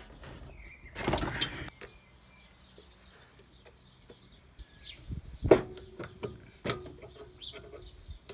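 Scattered clicks and sharp knocks of parts and tools being handled while a 196cc four-stroke engine is taken apart; the loudest knocks come a little past halfway. Birds chirp faintly in the background.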